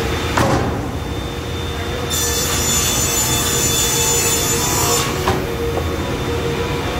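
Sliding-table panel saw running, its blade cutting through a pine panel: a steady machine hum, with a high hissing whine of the cut from about two seconds in to about five seconds in. A knock comes just before the cut and a sharp click just after it.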